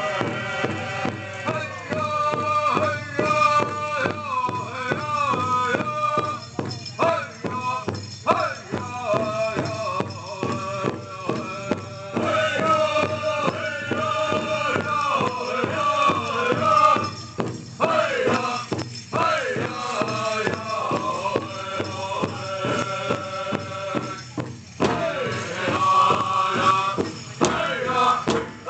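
Powwow drum group singing a chanted song in unison over a steady beat on a big drum.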